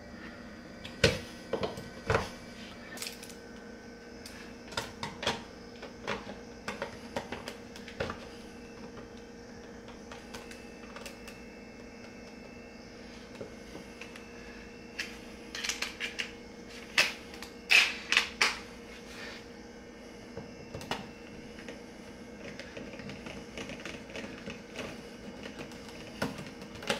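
Scattered sharp clicks and taps of hard plastic and metal: a plastic outlet wall plate being fitted over a receptacle and its screw driven in with a hand screwdriver. The clicks come in irregular clusters, loudest a little past halfway, over a faint steady hum.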